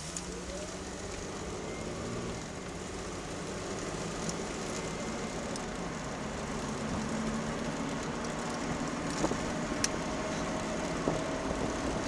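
A car's engine and tyre noise inside the cabin, growing gradually louder as the car pulls away and picks up speed. A few faint clicks come near the end.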